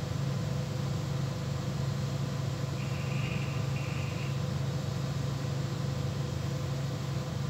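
A steady low machinery hum, with two short high electronic beeps about three and four seconds in.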